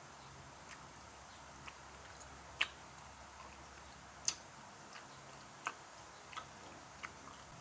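Close-miked chewing: short wet mouth clicks and smacks, about one a second, over a faint hiss, with the two loudest a little before and after the middle.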